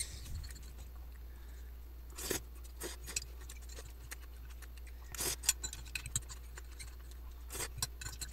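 Metal fork and spoon clicking and scraping against a ceramic plate and clam shells while twirling spaghettini, with three louder short noisy sounds spaced a couple of seconds apart.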